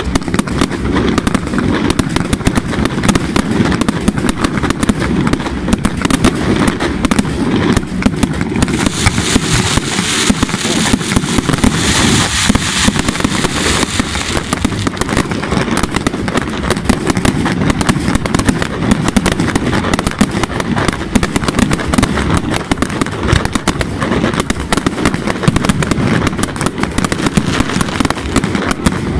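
Aerial fireworks display: shell bursts and reports in a dense, continuous barrage with no gaps, over hissing spark fountains. About nine seconds in, a spell of brighter hiss and crackle lasts some five seconds.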